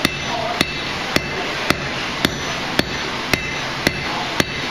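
Hand hammer striking a red-hot 5/8-inch square steel bar on an anvil, a steady rhythm of just under two blows a second, each with a short metallic ring. These are half-on, half-off blows over the anvil edge, forging the offset shoulder of a wolf-jaw tong blank.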